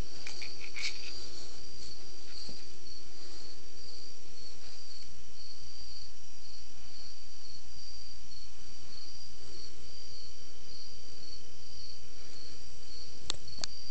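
A cricket chirping steadily, a high-pitched chirp repeated at an even pace over a constant low hum, with a couple of light clicks near the end.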